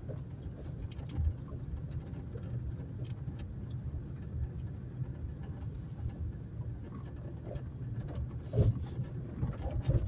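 A vehicle driving slowly along a rough dirt track: a steady low rumble of engine and tyres with light rattles, and a couple of louder bumps near the end.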